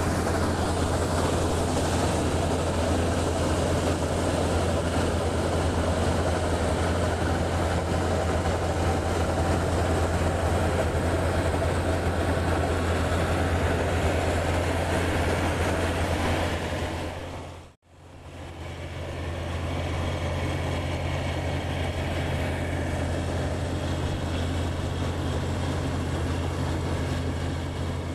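Combine harvester running steadily while harvesting soybeans: a constant low engine hum under a broad rush of machine noise. About two-thirds of the way through, the sound fades out and comes back a second later.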